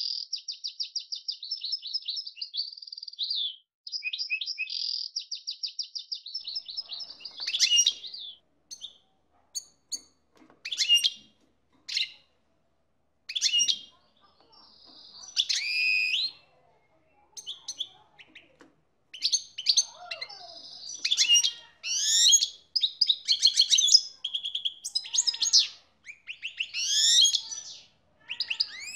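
Male European goldfinch singing in breeding condition, excited at mating time: two long, fast, even trills, then separate chirps that build into dense twittering song phrases in the second half.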